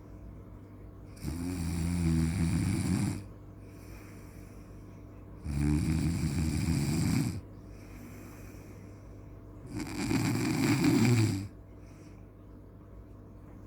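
A sleeper snoring: three long snores about four seconds apart, each lasting nearly two seconds, with a faint steady hum between them.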